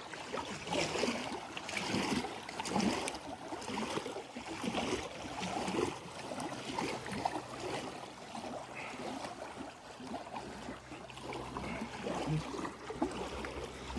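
Water lapping and splashing against a small boat's hull in irregular slaps. A low steady hum comes in about a third of the way through and carries on.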